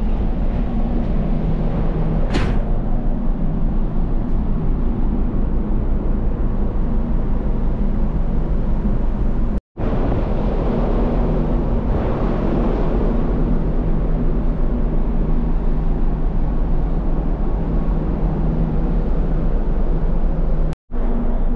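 Steady low drone of a ferry's engines and onboard machinery heard on the open deck, with a constant deep rumble under a few held low tones. A brief hiss sounds about two seconds in, and the sound cuts out for an instant twice.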